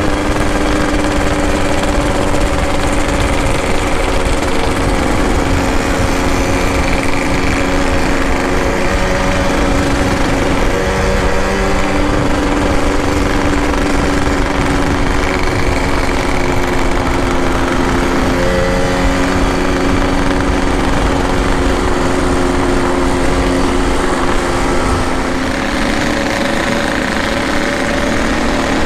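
Two-stroke motorcycle engine running at a steady, fairly even speed while riding, with brief small shifts in pitch about ten and eighteen seconds in.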